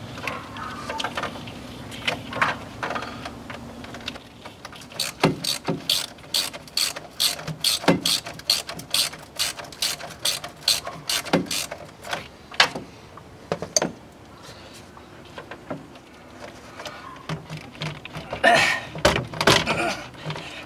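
Hand ratchet clicking in a long run of quick, even strokes, about three a second, loosening the hose clamp on a plastic charge air pipe. Near the end comes rougher scraping and knocking as the stiff plastic pipe is worked loose.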